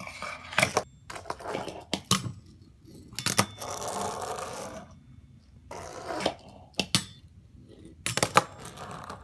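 Fingerboard (miniature finger-skateboard) clacking on a metal ramp, a rail and a countertop: scattered sharp clicks of the deck and wheels striking and landing, the loudest pair near the end, with a stretch of the wheels rolling in the middle.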